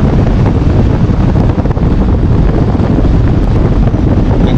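Loud wind rumble buffeting the microphone on a moving vehicle, with steady road noise underneath.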